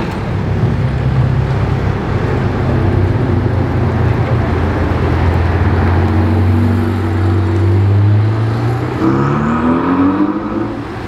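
Ferrari 488 Pista's twin-turbo V8 running steadily at low revs as the car moves slowly, then revving up about nine seconds in as it accelerates away.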